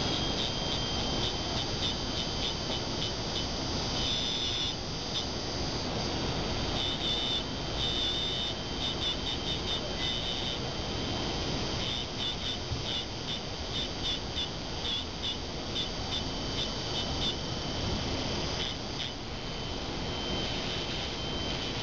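Slow-speed dental handpiece spinning a green abrasive cup: a steady high whine that dips and wavers many times as the cup is pressed against a composite build-up on a model tooth, grinding down a high point of occlusion.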